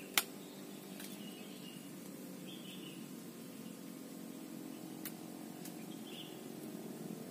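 Sharp click a fraction of a second in, and fainter clicks later, as a woody mentaos bonsai stock is handled and worked by hand, over a steady low hum and a few faint bird chirps.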